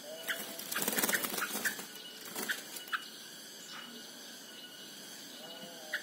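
Caged jogjog birds (bulbuls) giving short, scattered chirps, with a quick flurry of wing flapping against the cage about a second in.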